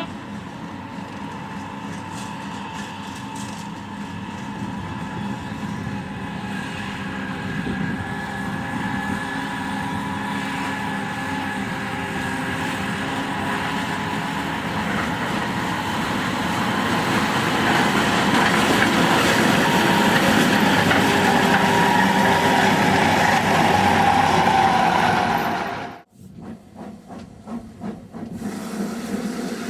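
Snowdon Mountain Railway rack train's locomotive running and growing steadily louder as it approaches. It cuts off suddenly near the end, leaving a quieter, uneven sound.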